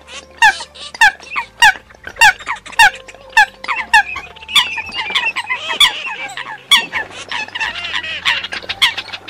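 Calls of the sâm vịt bird: short downward-sliding squeaky notes repeated at an even pace, a little under two a second, giving way about halfway through to a denser run of overlapping chattering calls.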